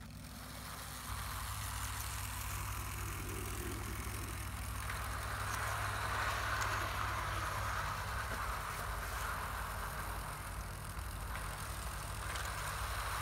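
Model train running on garden track, a BR 2-8-0 locomotive hauling coaches: a steady low hum with a rolling rush of wheels on rails that grows louder about five seconds in and again near the end.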